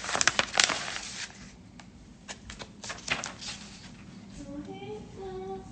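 Gift packaging being handled, with a quick run of sharp crinkles and clicks over the first three seconds. Faint voice-like tones follow near the end.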